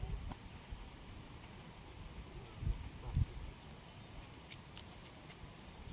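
Insects trilling steadily in a single unbroken high-pitched tone, with a couple of low thumps near the middle.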